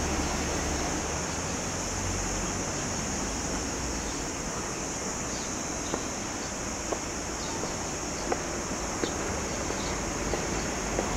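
Outdoor ambience: a steady wash of background noise with a constant high-pitched hum, a low rumble in the first couple of seconds, and faint light clicks about once a second in the second half.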